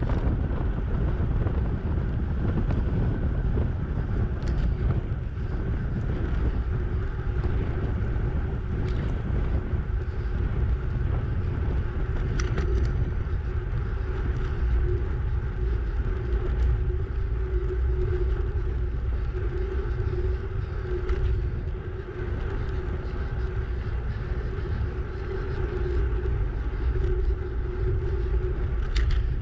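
Wind buffeting the microphone of a bicycle-mounted camera while riding at about 30 km/h, a steady low rumble with a faint steady hum underneath.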